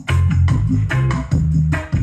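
Loud music with deep, stepping bass notes and a steady beat, played through a power amplifier into a driver under test as a subwoofer.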